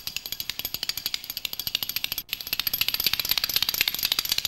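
Two spoons played as a percussion instrument in the Vietnamese two-beat technique: a rapid run of clicking strokes that gets faster, with a brief break about two seconds in, after which it comes back louder.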